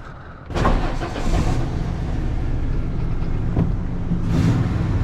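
Work truck's engine starting about half a second in, then running steadily with a low rumble.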